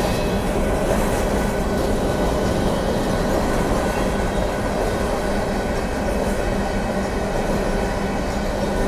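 Covered hopper cars of a Union Pacific grain train rolling past a grade crossing, a steady rumble of steel wheels on the rails.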